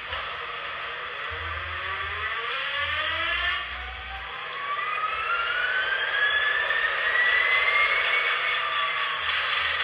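Paragon 2 sound system in an HO-scale BLI SD40-2 model locomotive playing its diesel start-up sound. The engine starts abruptly, then a whine rises in pitch for several seconds and levels off into a steady idle.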